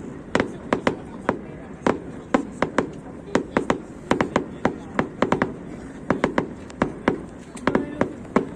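Fireworks going off: a rapid, irregular run of sharp bangs and cracks, about three or four a second.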